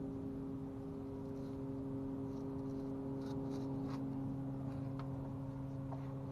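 A steady low hum made of several fixed tones, like a running motor or appliance, with a few faint ticks.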